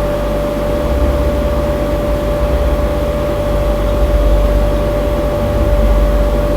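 Steady machine hum: a constant mid-pitched tone over a low rumble that swells slightly at times.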